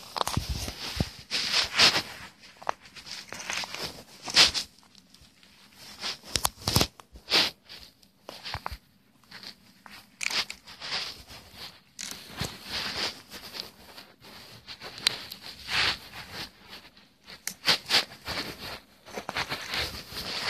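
Irregular close-up crunching and rustling, in uneven bursts of differing loudness with short quiet gaps between them.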